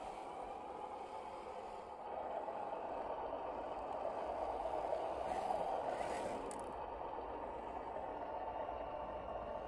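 1/10-scale RC crawler's 540-size brushed electric motor and drivetrain whirring steadily as it climbs loose dirt, with tyres scraping and rattling over soil clods. It gets louder after about two seconds and eases off near the end.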